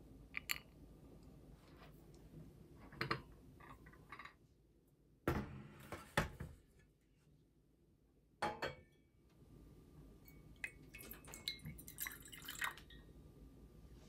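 Quiet kitchen handling sounds: caramel syrup dripping into heatproof glass cups with light glass clinks, a few louder knocks of cookware being set down midway, and a run of small clicks near the end.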